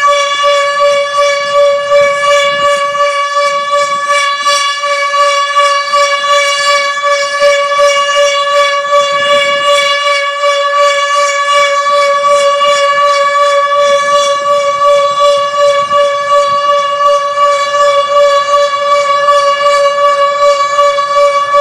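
HOR Siro-Drone warning siren sounding the steady Alert signal, one unbroken tone held at a constant pitch, during a tornado siren test.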